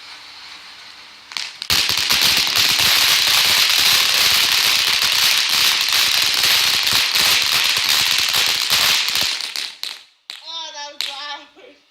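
Small consumer firework going off in a dense, continuous run of rapid crackles over a hiss, starting about two seconds in and stopping abruptly after about eight seconds.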